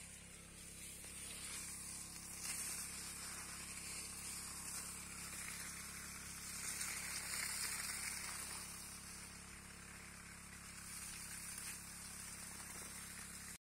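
Irrigation water jetting from a pipe and splashing onto mulched soil at the base of a guava tree, a steady hiss.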